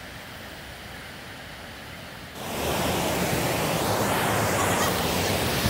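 Rushing river rapids and waterfall, a steady hiss of white water, faint at first and then suddenly much louder and fuller about two and a half seconds in, heard right beside the falls.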